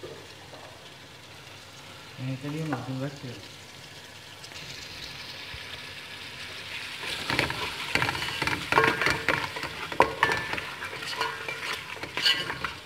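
Mutton and whole spices sizzling in hot oil in an aluminium pot, the sizzle building from about four seconds in. From about seven seconds on a spatula stirs the meat, knocking and scraping against the pot.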